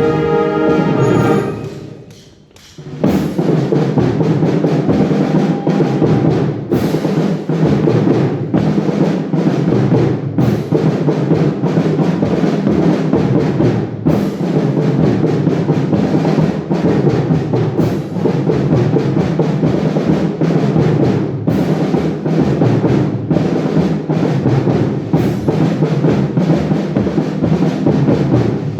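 Concert wind band playing: a held brass chord cuts off about a second and a half in, a brief pause follows, then the full band comes back in over a steady beat of timpani and drums.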